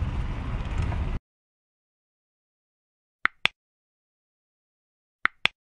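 Wind and movement noise rumbling on the microphone, cut off abruptly about a second in. Then two pairs of sharp mouse-click sound effects, two seconds apart, from a subscribe-button animation: a cursor clicking 'Subscribe' and then the bell.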